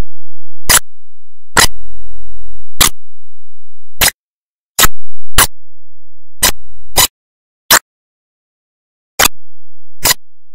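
Sharp clicks, about a dozen at uneven intervals roughly a second apart, with a faint low hum under them twice.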